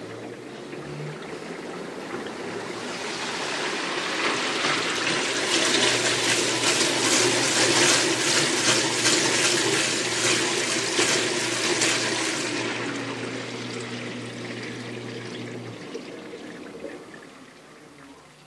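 Waveforce 14 kg top-loading washing machine agitating a load of jeans in soapy water on its jeans program. The water sloshes and swirls, building up to a loud peak in the middle and dying away toward the end, with a steady low motor hum under the loudest part.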